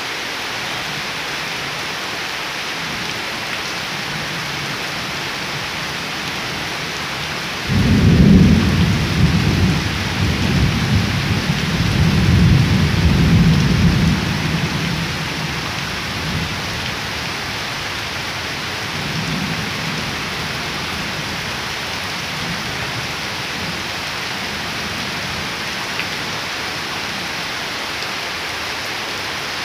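Steady rain falling on standing water and leaves. About eight seconds in, thunder breaks suddenly and rumbles for about seven seconds, the loudest sound here, with a fainter rumble a few seconds later.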